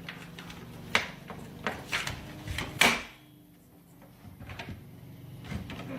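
A series of short knocks and clicks, about five in the first three seconds, the loudest just before the third second, followed by a quieter stretch with a few faint ticks.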